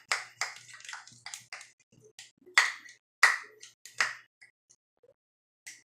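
Glue-and-borax slime being mixed in a cup: irregular wet, sticky clicks and squelches, with a few louder ones in the middle.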